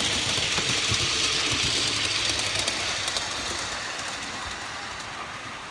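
5-inch gauge miniature locomotive and its riding cars rolling past on the track, wheels clicking over the rail joints, the running noise fading away as the train moves off.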